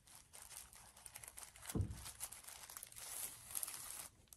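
Crinkling rustle of a thin frosted plastic sleeve being pulled out of a cloth drawstring pouch, with one dull thump about two seconds in; the rustling stops about four seconds in.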